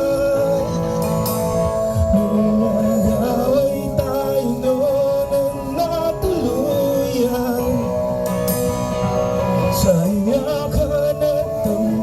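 A band playing a song live, with a singer's voice carrying the melody over the instruments.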